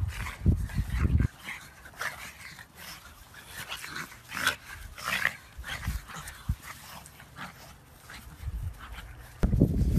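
Two pugs play-wrestling, making short, scattered dog noises. Dull low rumbles come in the first second and again near the end.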